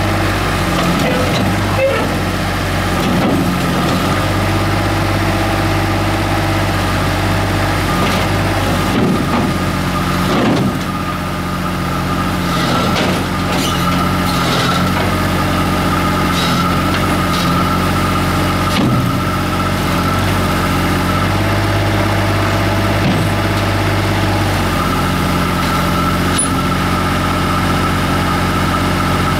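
Komatsu PC50UU mini excavator's diesel engine running steadily under load, with a steady high whine over the engine note, as the machine crawls up truck loading ramps. A few sharp knocks and clanks midway as the steel tracks climb.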